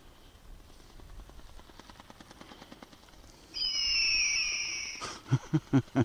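Recorded eagle cry from the Hanvon Go-Go Bird ornithopter's built-in sound effect, a high screech lasting about a second and a half that starts about three and a half seconds in. A few short, sharp notes follow just before the end.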